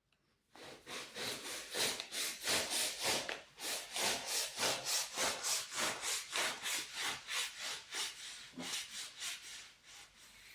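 A saw cutting the V cut in a cable tray by hand, in even back-and-forth strokes of about three a second that weaken near the end.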